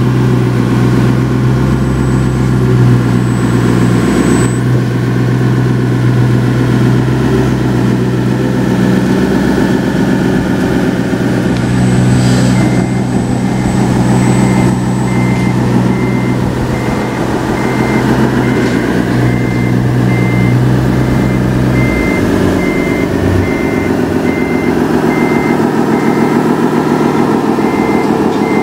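Model RC DX2 bulldozer's sound unit playing a steady diesel engine note as it pushes dirt. A truck-style reversing beep starts about halfway through and repeats evenly.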